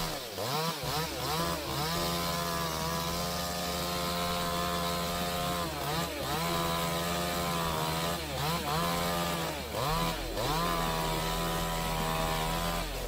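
Chainsaw running at high revs, its pitch dipping briefly and climbing back again several times.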